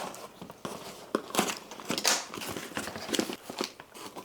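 Packing material crinkling and rustling in irregular bursts as a mailed plant box is unpacked by hand.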